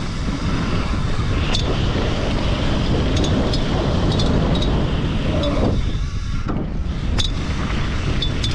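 Mountain bike riding down dry, rocky dirt: wind rushing over the camera microphone and the tyres rumbling over the ground, with a few sharp clicks and rattles.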